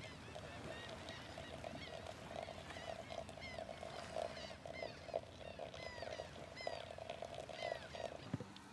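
Hot water trickling from a stainless steel kettle into a drip-bag pour-over coffee filter on a mug, a steady pour that stops shortly before the end. Faint high chirps sound throughout.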